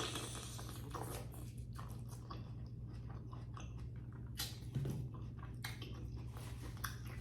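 Close-up chewing: a person biting and chewing a green-lipped mussel, with wet, irregular mouth clicks and smacks.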